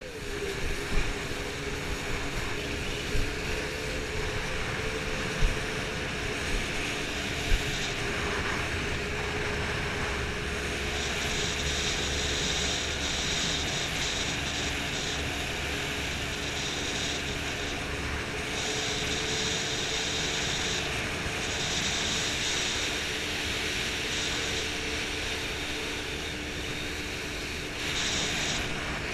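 Jet boat's engine running steadily at speed, with a rush of water and wind. A few sharp knocks come in the first eight seconds.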